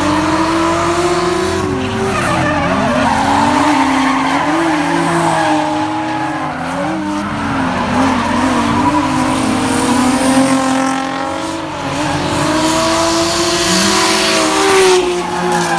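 Drift cars sliding at high revs, their engine notes rising and falling sharply over and over as the throttle is worked, with tires squealing. Loudest near the end, as two cars drift past close by in tandem.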